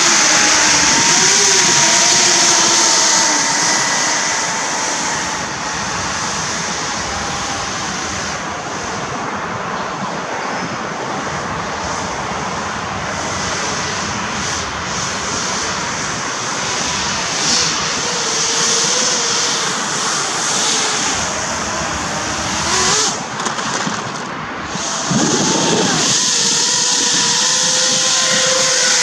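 Battery-electric RC hovercraft's shrouded propellers and lift fan running: a steady rushing whine that slides up and down in pitch with the throttle. It drops somewhat as the craft drives away and grows louder again as it comes back near the end.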